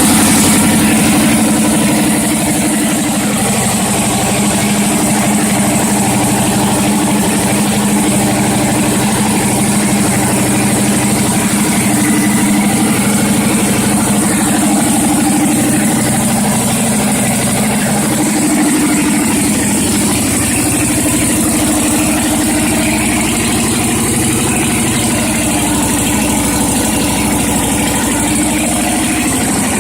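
Turbocharged Suzuki TL1000R's V-twin engine idling just after starting. It eases down a little a couple of seconds in, then runs at a steady idle.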